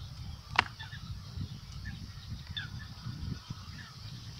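A 20 mm fishing boilie snapping once as it is broken between the fingers, a single sharp crack about half a second in. A low rumble and faint bird chirps lie under it.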